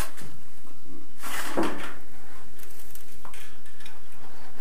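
Light metallic clatter and scraping as a thin steel drywall profile and a tape measure are handled, loudest about a second and a half in, with a few fainter scrapes after.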